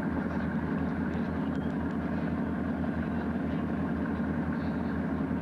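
Cruise boat's engine running steadily: a low, continuous drone with a fast, even pulse.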